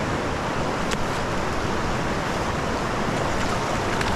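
Steady rushing of a small river's flowing water, with a few faint ticks.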